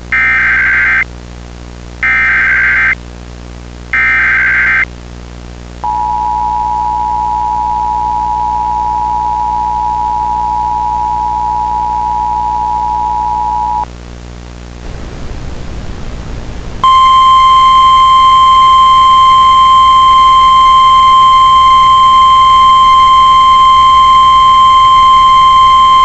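Emergency Alert System signals: three short bursts of SAME digital header tones, then the two-tone EAS attention signal held steady from about six seconds in to about fourteen seconds in. After a brief stretch of static, the single-tone NOAA Weather Radio warning alarm starts about seventeen seconds in and runs on loud and steady.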